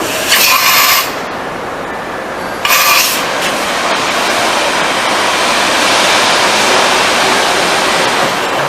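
2004 Daewoo DMV 3016 CNC vertical machining center running: a steady rushing hiss, with two short, louder hissing bursts, one just after the start and one near three seconds in.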